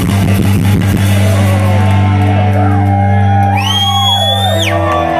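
Live rock band playing loud through a PA: drum hits for about a second, then a held chord with a high squealing tone that slides up, holds and drops away near the end.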